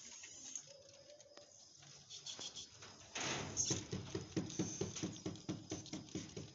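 Rabbits chewing fresh green leaves: rapid, overlapping crunchy chews, several a second, with leaves rustling. The chewing comes in loudly about three seconds in; before that there are only faint rustles and clicks.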